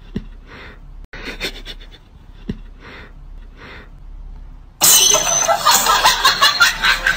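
A cat sniffing at a socked foot, short breathy sniffs about twice a second. About five seconds in, a much louder crashing, shattering noise starts and lasts a couple of seconds before cutting off.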